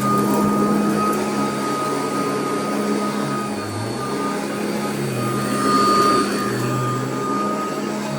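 Royal vacuum cleaner running on carpet: a steady motor hum and high whine over rushing air, with a lower tone that dips and recovers a few times as the load changes.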